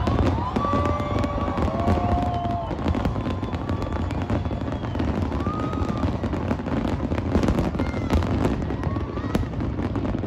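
Large aerial fireworks display: a dense, continuous run of bangs and crackling shell bursts, with a few short whistling tones sounding over it now and then.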